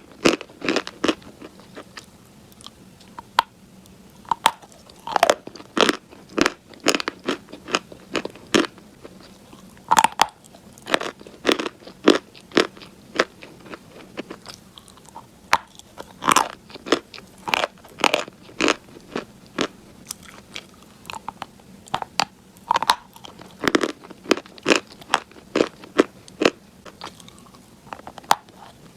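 A person biting into and chewing something crunchy close to the microphone: sharp, irregular crunches about once or twice a second, with quieter chewing between.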